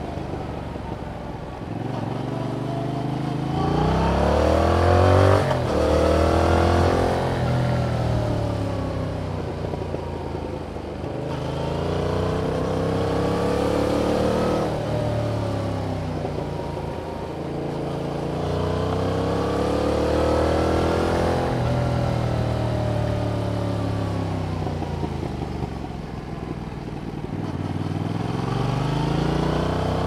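Yamaha MT-07's 689 cc parallel-twin engine through its stock exhaust, under way. The revs climb in repeated pulls, each ending in a sudden drop in pitch at a gear change or roll-off, then wind down as the bike slows, and climb again near the end.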